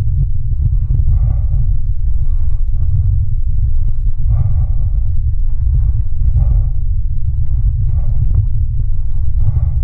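Steady, loud wind rumble on an action camera's microphone as a mountain bike rides over a dirt farm track, with scattered knocks from the bumpy ground and brief mid-pitched bursts every second or two.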